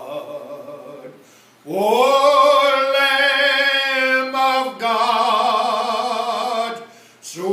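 A man singing solo and unaccompanied, holding long notes with a slight vibrato. There is a short breath about a second in, then a long sustained phrase that steps down in pitch partway through, and a new phrase begins at the end.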